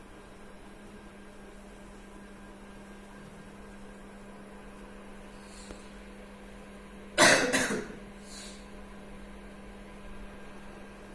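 A person coughs about seven seconds in: two loud coughs close together, then a fainter one, over a steady low hum.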